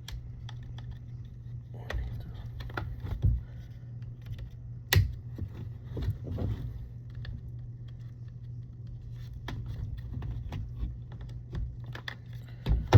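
Plastic clicks, ticks and scrapes as the latches of a Ford Expedition fuse box housing are pressed and the case is pried apart, with a sharper snap about five seconds in. A steady low hum runs underneath.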